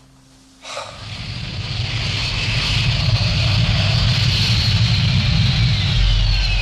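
Jet-type engine roar of a craft, swelling in about a second in and holding loud with a deep rumble and a hiss, and a whine that falls in pitch near the end.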